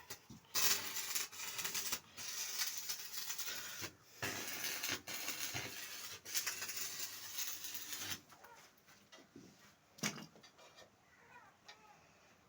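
Stick (arc) welding: the electrode arc crackling and sizzling in three runs with short breaks between, then stopping about 8 seconds in, with a single sharp click near 10 seconds. It is a repair weld on a broken chaff cutter frame.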